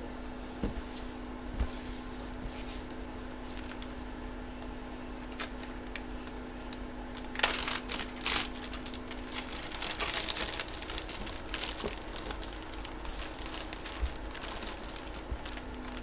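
Plastic packaging crinkling and rustling as it is handled, loudest in two spells around the middle. A low steady hum runs underneath and stops about halfway through.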